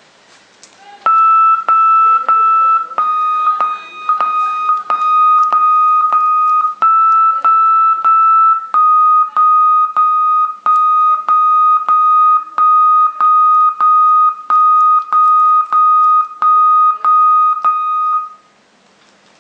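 Satellite set-top box's signal tone sounding through the TV speaker on the signal strength and quality screen. It is a loud, steady high beep, broken by short gaps about twice a second, that shifts slightly up and down in pitch a few times and cuts off near the end.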